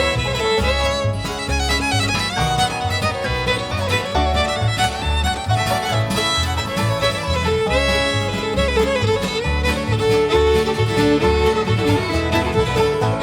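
Bluegrass music with fiddle playing the melody over guitar, banjo and a steady bass beat.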